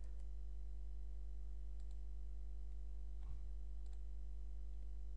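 Steady low electrical hum on the recording, with a few faint computer mouse clicks scattered through it.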